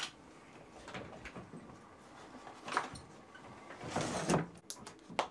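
Drawer of an old wooden dresser being pulled open and items handled inside it: scattered knocks and rustles, a louder scrape about four seconds in, then a few sharp clicks near the end.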